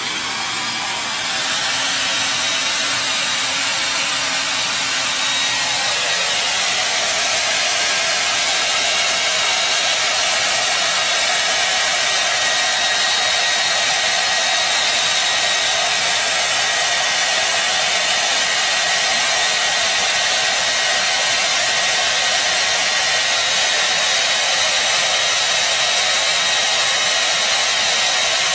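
Hand-held hair dryer blowing, switched on just before and building up over the first second or two, then running steadily with a faint high whine.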